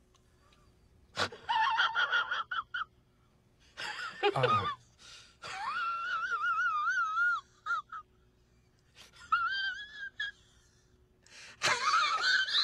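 A person's voice making non-word sounds: a few short gasps, then a high-pitched wavering wail held for about two seconds, and two shorter wails later on.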